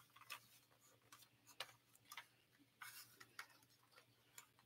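Faint, irregular clicks and taps of a small plastic toy playset being handled as a plastic key is pushed into it.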